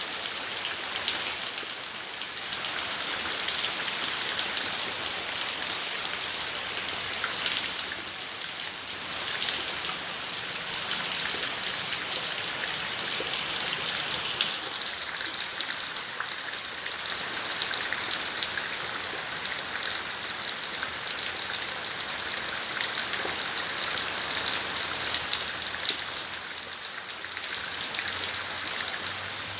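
Steady rain falling, a continuous hiss made up of countless small drop ticks, easing a little about a quarter of the way in and again near the end.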